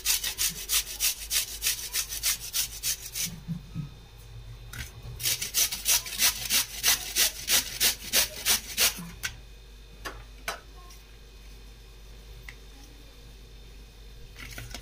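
Cabbage being grated on a flat stainless-steel hand grater: quick rasping strokes, about four or five a second, in two runs with a short pause between, then a few single strokes.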